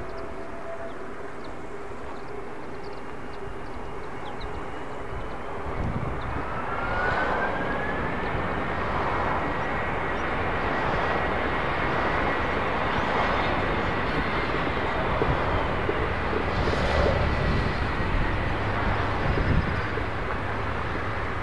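Airbus A321neo jet engines on landing approach and rollout. The noise grows louder from about six seconds in, with a whine that rises in pitch and then holds steady.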